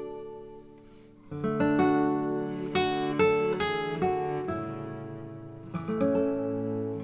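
Background music played on plucked acoustic guitar. It fades low about a second in, then comes back louder with a quick run of picked notes.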